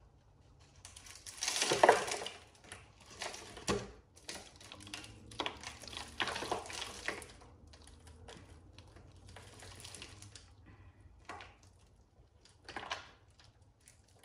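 Dry potting soil crumbling and rustling as hands squeeze a plant out of a thin plastic nursery pot and break the soil off its roots. The sound comes in several scratchy spells of a second or two, the loudest about two seconds in.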